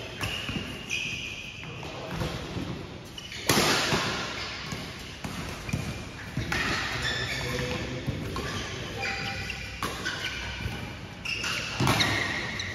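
Badminton rally: sharp smacks of rackets hitting the shuttlecock, several a few seconds apart, with short high squeaks of shoes on the court mat and some players' voices.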